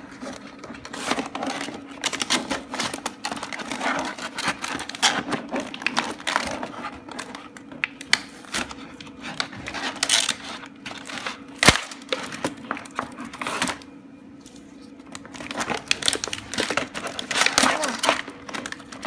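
Plastic toy packaging being handled and pried open by hand: irregular crinkling, rustling and scratching, with one sharp click about twelve seconds in.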